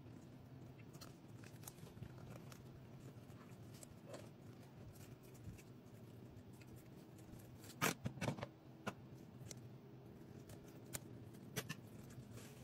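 Kitchen scissors snipping through raw chicken, heard as scattered faint clicks with a cluster of sharper clicks about eight seconds in, over a faint low hum.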